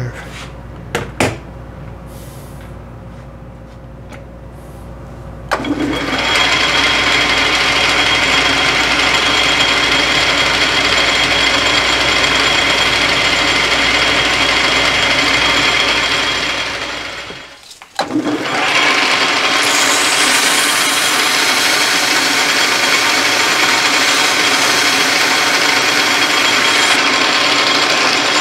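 Metal lathe running while the tool takes a turning pass along a hard steel shank. There are a few clicks at the start, then a steady machining noise from about five seconds in that breaks off for a moment about two-thirds through and then resumes.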